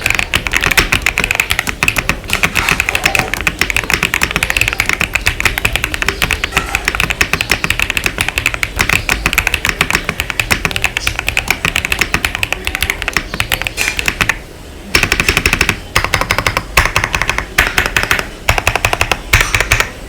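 Epomaker RT85 mechanical keyboard with a polycarbonate plate being typed on fast and continuously: dense keystrokes with a thocky, slightly poppy sound and a short pause about fifteen seconds in.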